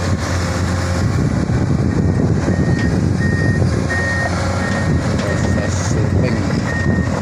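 Komatsu hydraulic excavator's diesel engine running with a deep steady hum as the machines work, joined from about two and a half seconds in by a warning alarm beeping steadily, about one beep every 0.7 seconds.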